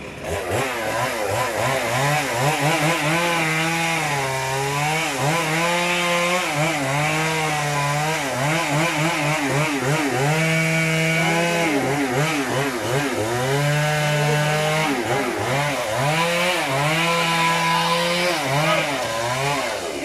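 Two-stroke chainsaw running and cutting into a tree trunk, its engine pitch repeatedly dropping and rising as the chain bites and is eased off.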